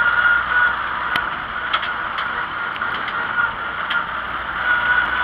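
Tractor engine running steadily at road speed, heard from on board the tractor, with a few sharp ticks and rattles scattered through it.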